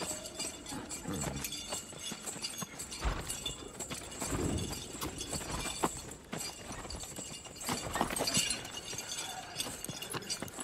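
Horses walking slowly on a dirt path, hooves clopping irregularly, with scattered metallic clinks.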